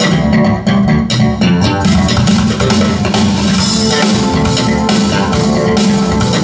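Rock-style music with bass guitar, guitar and drums, played back over Cabasse active spherical loudspeakers. The drums and cymbals come in fuller about two seconds in.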